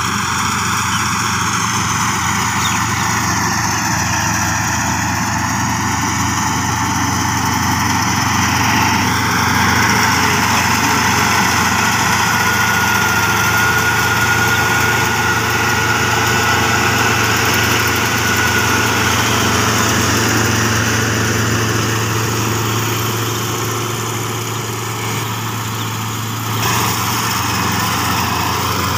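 Kubota SR55 crawler combine harvester running steadily, its engine and machinery making a continuous even sound as the header cuts standing rice.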